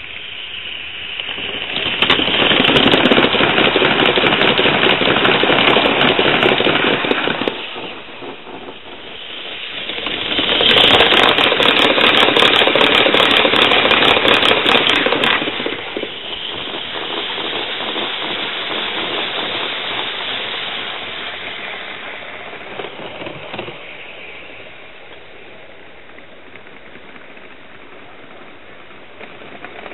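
Gauge 1 live steam locomotive and its freight train passing close by twice, a loud fast clatter of wheels on the rails with steam exhaust hissing, each pass building up and dying away over about five seconds. After the second pass the train runs on further off as a quieter steady hiss and rumble that fades.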